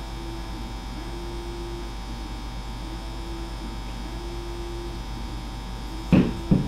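Steady electrical mains hum with a faint thin tone that comes and goes about once a second. Near the end, two sharp knocks about half a second apart as the plastic glue bottle is put down on the table.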